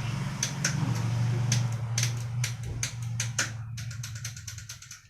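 Scattered sharp clicks from bicycle parts and tools being handled, over a steady low hum like a shop fan. Near the end comes a quick, even run of about eight clicks a second, like a ratcheting mechanism, which then stops.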